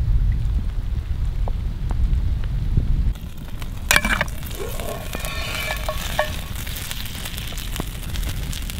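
A low rumble of wind on the microphone. About four seconds in, the cast-iron Camp Chef Dutch oven's lid clanks and scrapes as it is lifted off with a lid lifter. Then the meat and fat inside sizzle over the campfire, with small crackles.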